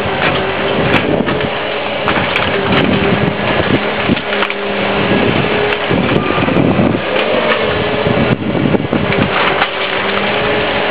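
Motor vehicle engines running, their pitch rising and falling as they rev and pass, over a steady noise with scattered light clicks.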